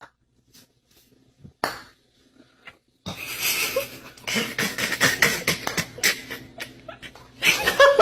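A person laughing in many short, breathy bursts, starting about three seconds in after a near-silent stretch with a few faint clicks.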